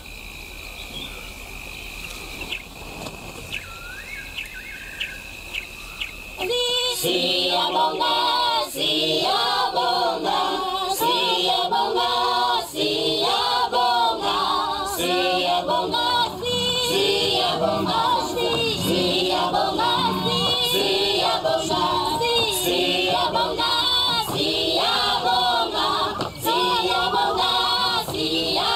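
Night ambience for the first six seconds or so: a steady high trill with a few short rising chirps. Then choral music comes in, several voices singing, and carries on to the end.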